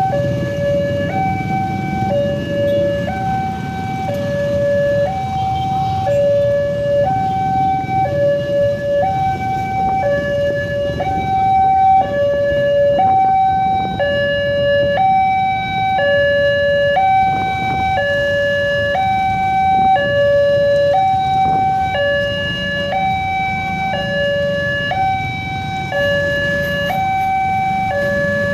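Railway level-crossing warning alarm: an electronic two-tone signal switching steadily back and forth between a higher and a lower tone, warning of an approaching train. Underneath is the low rumble of waiting road traffic.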